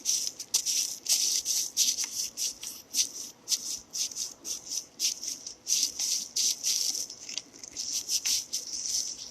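Quick rubbing strokes, a couple or more a second, as old thermal paste is wiped off the copper plate of a laptop CPU heatsink.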